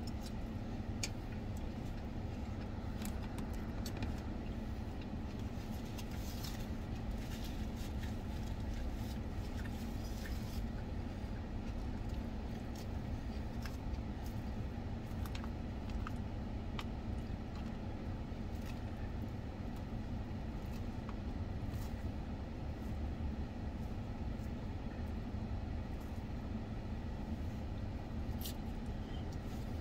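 Steady low rumble of a car running while parked, heard inside the cabin. Faint, scattered clicks and crunches of raw salad being chewed come over it, mostly in the first dozen seconds and again near the end.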